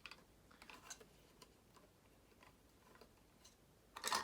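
Faint scattered clicks and ticks of electrical wires and a switch being handled and pushed into an electrical box, with a louder cluster of clicks near the end.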